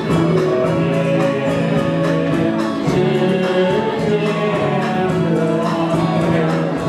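Karaoke backing track with a steady beat, playing through a PA system, with singing over it.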